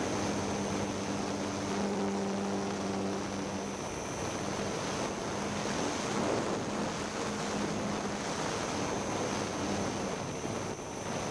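Wind rushing over the microphone of a camera riding on a flying model aircraft, with the low hum of its motor, strongest in the first few seconds and coming and going after.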